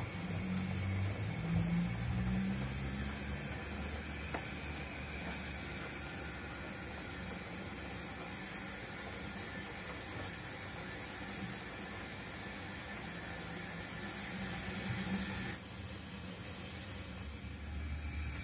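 0 gauge (7mm scale) model railway coaches rolling along the track: a steady low rumble of wheels on the rails under an even hiss. The sound drops and thins abruptly near the end.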